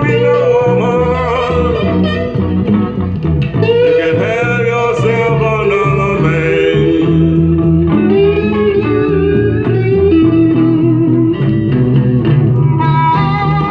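A 45 rpm vinyl single playing on an RCA Victor J-2 record changer through a Fisher CA-40 tube amplifier and an Electro-Voice Baronet (SP-8B) speaker. The record is a song with guitar and a singing voice.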